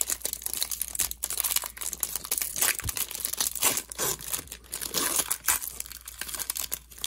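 Foil wrapper of a hockey card pack being torn open and crumpled by hand, a continuous crackly crinkling.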